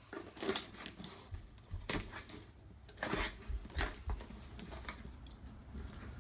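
A small cardboard box being cut open with a knife and unpacked: irregular scrapes, rustles and light knocks.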